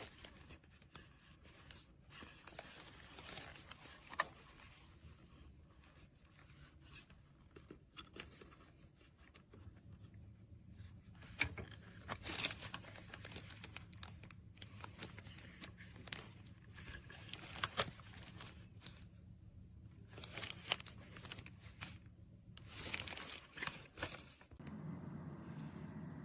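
Handling noise close to the microphone: irregular rustling and crinkling with scattered sharp clicks and scrapes, as something such as packaging or the headphones is handled. A faint steady low hum comes in about ten seconds in.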